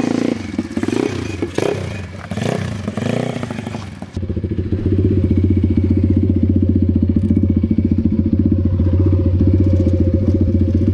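Pit bike engines revving, their pitch rising and falling, for about four seconds. Then an AMR pit bike's single-cylinder four-stroke engine idles steadily and loudly, heard close up with the high end muffled.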